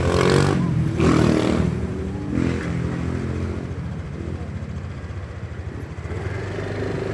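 Road vehicle engine running as traffic passes: two loud bursts in the first two seconds, then a steadier, quieter engine hum.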